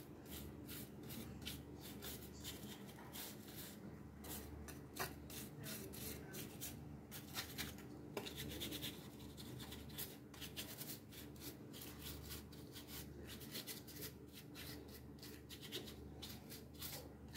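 Paintbrush bristles stroking over a wooden cutout, making faint, quick scratchy brushing strokes over and over.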